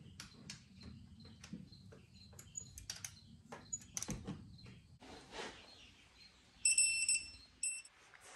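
Scattered light clicks and taps of hand tools at work under a 2020 Honda Odyssey, then the minivan's dashboard warning chime beeping in two short pulsed bursts inside the cabin.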